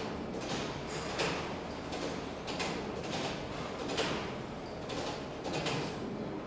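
Industrial plant machinery: a steady low rumble with about a dozen short, irregular clanks and scrapes.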